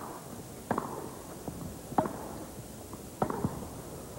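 Tennis ball struck by rackets in a baseline rally on grass: three sharp hits about 1.3 seconds apart, with fainter ticks between them.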